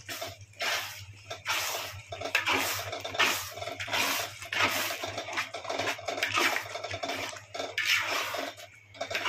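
Metal spoon stirring thick masala in a large kadai, scraping against the pan in repeated strokes, about one or two a second.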